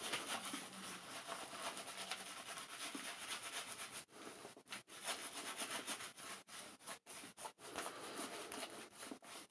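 Person Special Solingen straight razor scraping through lathered stubble, a rasping sound in short repeated strokes with brief pauses between them.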